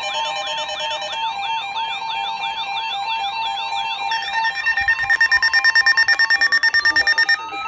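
Layered electronic alarm and siren tones: siren-like pitch sweeps repeating several times a second over steady tones. About four seconds in they give way to a louder, fast pulsing beep, and near the end a single tone rises slowly in pitch.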